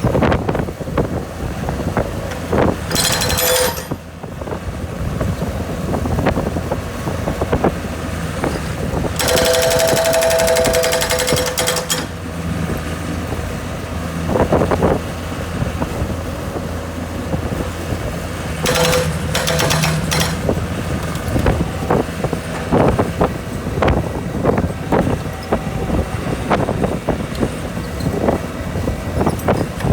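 Hydraulic breaker hammer on a skid steer chipping a concrete deck: three bursts of rapid hammering, the longest about three seconds, over the skid steer's steady running engine. In the last third come many separate sharp knocks.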